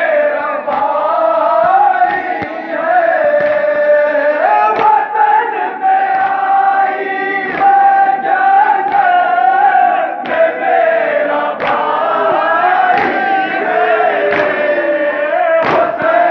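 Male voices chanting a nauha, a Muharram lament, in unison with a lead reciter. A steady beat of sharp slaps a little faster than once a second runs through it: mourners striking their chests in matam.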